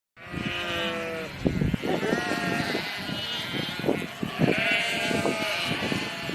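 Sheep bleating: several overlapping, quavering bleats in a row, with short low knocks between them.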